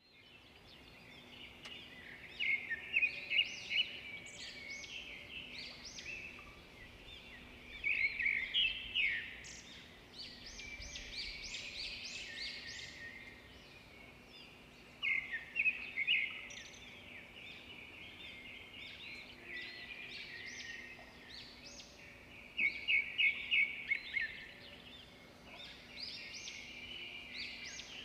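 A songbird singing: bursts of quick, high chirping notes about every six or seven seconds, with softer chirps between, over a faint steady hum.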